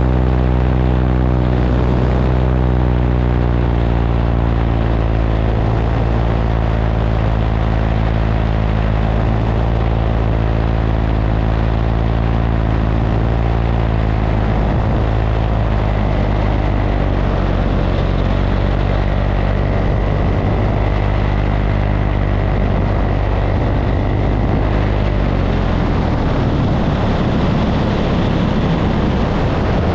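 Paramotor engine and propeller running steadily as the powered paraglider flies low toward the landing field. In the second half the engine's steady hum grows less distinct and wind rushing over the microphone takes over near the end.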